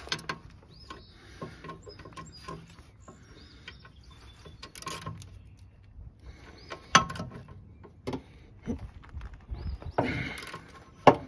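15 mm wrench clinking and scraping against the rusty lower rear shock bolt and mount as the bolt is worked loose: scattered light metal clicks, with a sharper knock about seven seconds in and another near the end.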